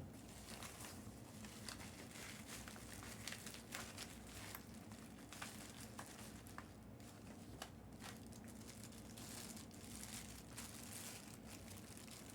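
Packaging being opened around a baseball: faint crinkling and tearing with scattered small clicks.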